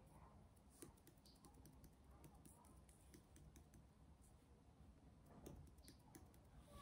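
Near silence with faint, scattered light clicks and ticks from a plastic squeeze bottle of glue being worked over a metal tray. Faint distant children's voices sit in the background.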